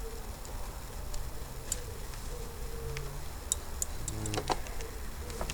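Hand handling noise: scattered light clicks and taps of small parts being handled, with a short cluster of clicks about four seconds in.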